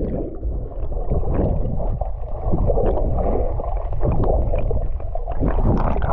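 Swimmers paddling under the sea, heard through a submerged camera microphone: a muffled churning rumble of stirred water that swells and fades.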